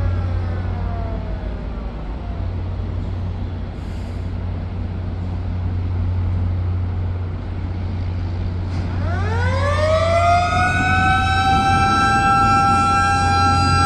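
Drawbridge warning siren: at the start a siren's pitch falls away as it winds down, then about nine seconds in it winds up again in a rising wail and holds a steady tone, signalling that the bridge span is about to be raised. A steady low hum runs underneath.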